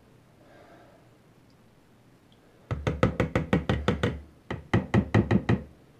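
A metal mesh strainer is rapped quickly against the rim of a plastic mixing bowl to shake the last of the bone broth through. About three seconds in come two runs of sharp knocks, about six a second, with a short break between them.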